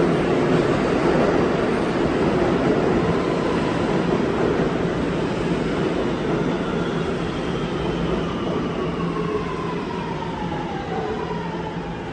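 R211A subway train running along the platform, the rumble of its wheels on the rails slowly fading. From about halfway through, a whine falls steadily in pitch as a train slows.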